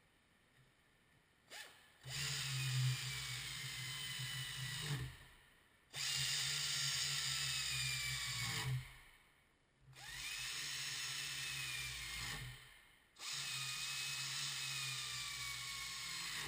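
Pneumatic air ratchet run in four bursts of about three seconds each, driving in and tightening the upper radiator core support bolts. Its whine sags slightly in pitch during each run and spins down as the trigger is released.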